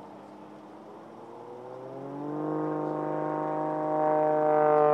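Aerobatic airplane's piston engine and propeller in flight. Faint at first, then rising in pitch and growing much louder about two seconds in, holding a steady, strong note.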